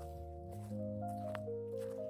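Background music: slow, sustained held notes in chords, changing pitch every half second to a second, with no beat.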